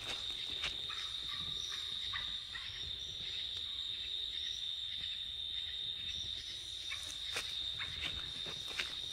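Night insects calling in a steady, high-pitched drone, with a few faint rustling steps in leaf litter near the end.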